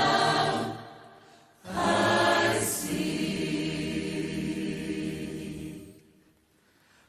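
Choir singing: one phrase dies away about a second in, then a new phrase begins and is held as a long, steady chord before it fades out near the end.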